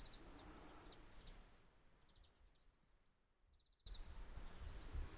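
Faint outdoor ambience: a low rumble with short, rapid high chirping trills now and then. It fades almost to silence midway, then cuts back in abruptly near the end.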